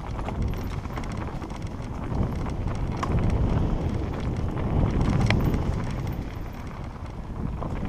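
Mountain bike rolling fast down a rough dirt singletrack: a continuous tyre and wind rumble with irregular rattling and knocking as the bike bounces over stones and roots.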